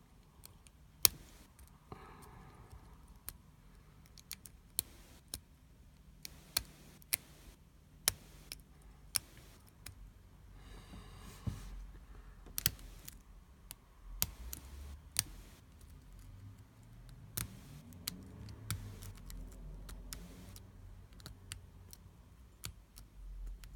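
Metal lock pick and tension tool working inside a Yale 125/50 padlock: irregular sharp clicks and light scraping as the pins are probed and set under tension, the loudest click about a second in. Low handling rumble comes and goes in the second half.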